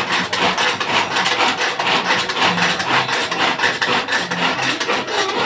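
Small kitchen food chopper running with a rough, rasping rattle as its contents are chopped.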